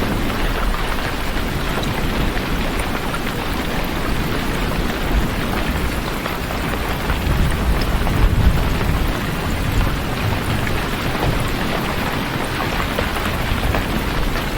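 Steady heavy rain, a dense even hiss of falling drops, with a deeper low rumble swelling briefly about halfway through.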